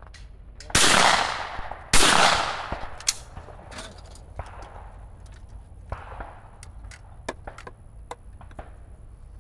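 Shotgun fired twice at a pair of clay targets, the shots a little over a second apart, each booming and dying away over about a second. Several much fainter sharp pops follow.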